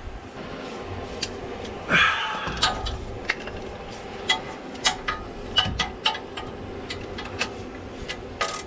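Irregular metallic clicks and clinks of a hand ratchet and socket working an exhaust manifold nut loose, with a louder scrape about two seconds in.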